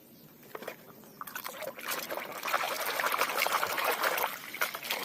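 Water trickling and splashing as a muddy toy is washed by hand, with many small clicks and knocks mixed in. It starts about a second and a half in and eases off near the end.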